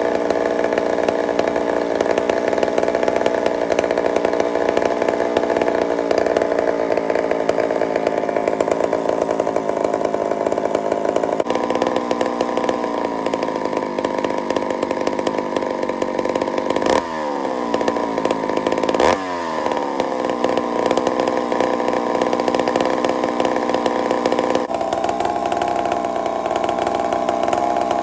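McCulloch 797 chainsaw's big two-stroke engine running at a steady idle shortly after starting, its note shifting a couple of times. A little past the middle it gives two quick sharp breaks in the note, each followed by a falling pitch.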